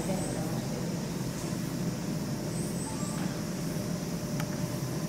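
Steady low rumbling background noise, with a few faint high chirps near the start and again about halfway through.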